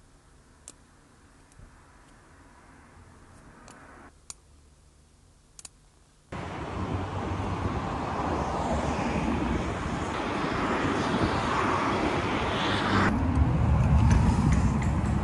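A few light taps of a stylus on a smartphone touchscreen over quiet room tone. About six seconds in, a loud, steady rush of outdoor noise starts abruptly, turning deeper near the end.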